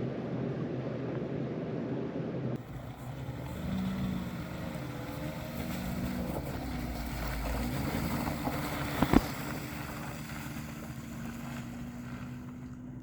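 A vehicle engine running steadily, with wind noise. A single sharp click about nine seconds in.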